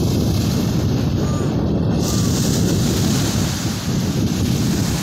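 Wind buffeting the microphone over small waves breaking on a sandy beach: a steady, heavy rumbling hiss.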